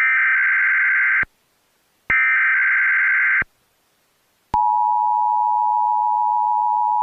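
Emergency Alert System tones: two harsh digital SAME header data bursts, each just over a second long with about a second's gap between them. About four and a half seconds in, the steady two-tone EAS attention signal starts and holds.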